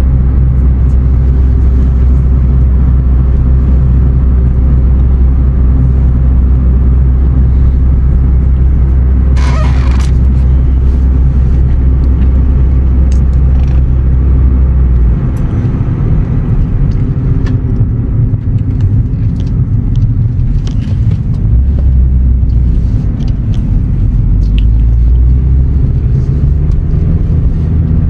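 Steady low rumble of a car's road and engine noise, heard from inside the cabin while driving. The rumble changes about halfway through, and there is one brief rustle about ten seconds in.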